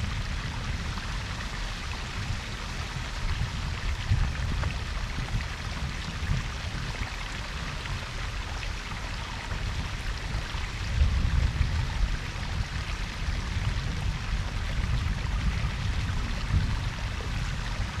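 Koi pond's waterfall and babbling brook: water splashing and trickling steadily, with a deep rumble beneath.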